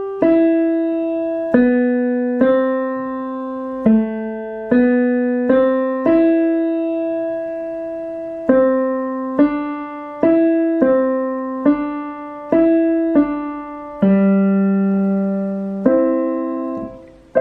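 Digital piano playing a slow single-line melody with the left hand, about twenty notes one at a time, each struck and allowed to ring. There are a few two-note chords, and a longer low chord is held near the end.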